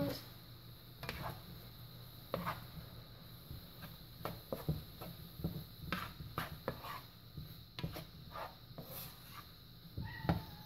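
A spoon stirring softened onions, garlic and ground spices in a pan, with irregular light scrapes and knocks against the pan.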